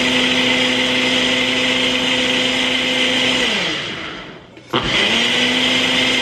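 Ninja Professional Plus blender's motor running at full speed on its ice-crush program, blending a protein shake with ice. About three and a half seconds in it winds down with a falling pitch and stops, then spins straight back up a second later, the stop-and-start pulsing of the ice-crush cycle.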